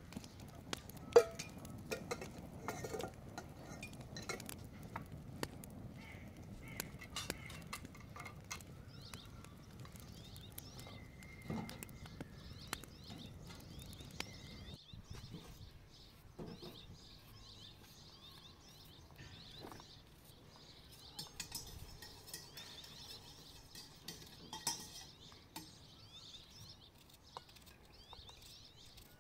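Metal bowls, plates and utensils clinking and tapping as dishes are washed and handled, with one sharp clink about a second in and quieter, sparser taps in the second half.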